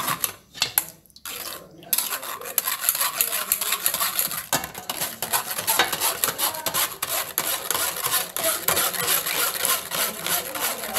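Metal spoon scraping and pressing a thick wet paste through a stainless-steel wire-mesh strainer: a few separate strokes at first, then from about two seconds in a rapid, continuous scratchy rubbing.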